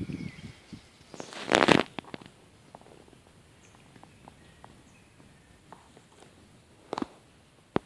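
A loud rustling crunch about a second and a half in, then scattered light clicks and ticks, with two sharper ones near the end: a handheld camera moved about over dry leaf and needle litter.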